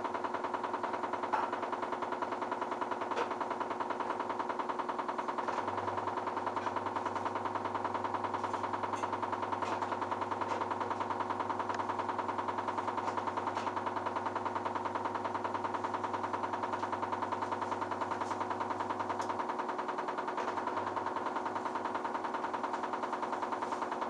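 LG F1222TD direct-drive washing machine running: a steady motor whine with a fast, even pulsing. A low hum comes in about five seconds in and stops about fourteen seconds later.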